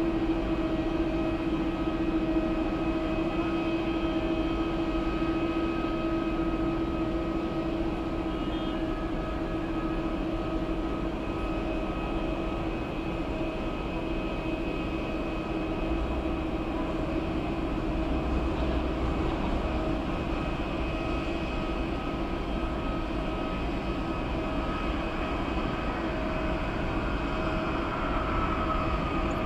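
Boeing 767-300ER jet airliner coming in to land: a steady engine hum with a whine over it. Near the end a whining tone falls in pitch as the aircraft reaches the runway.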